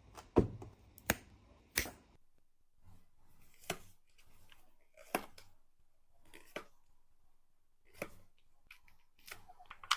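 Sharp plastic clicks and snaps, about eight of them at irregular intervals, with faint handling noise between: plastic toy parts being worked by hand.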